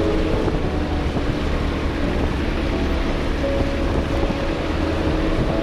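Car driving along a snow-covered road: steady engine hum and road rumble, with wind buffeting the microphone.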